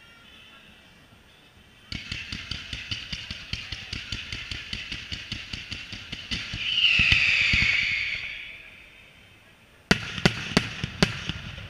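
Fireworks firing: a rapid volley of sharp reports, about seven a second for some four seconds, then a loud hiss that swells and fades. A cluster of loud, sharp bangs comes near the end.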